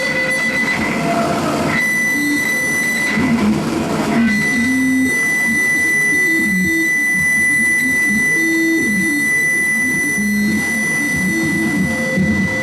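Live noise music: a dense, churning low layer with short stepping blips, under a steady high-pitched whine that cuts in and out early and then holds from about four seconds in.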